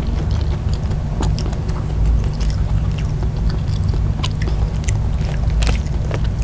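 Close-miked chewing of a mouthful of rice and side dishes, with many small wet mouth clicks, over a steady low hum.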